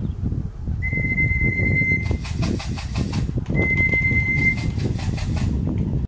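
Racing pigeons' wings clattering in two quick runs of even beats, about six or seven a second, as birds come down onto the loft over a steady low rumble. A steady high tone sounds twice, for about a second each time.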